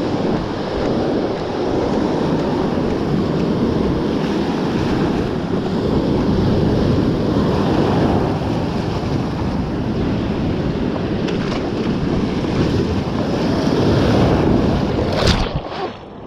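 Ocean surf breaking and washing up the beach, with wind buffeting the microphone. It is a steady, dense rush that drops away suddenly near the end.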